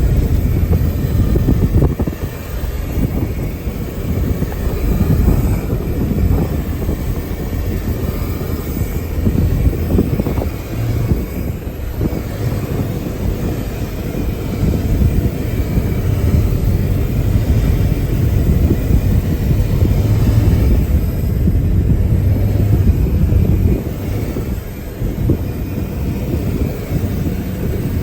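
A vehicle driving, with a loud, uneven low rumble that swells and dips throughout.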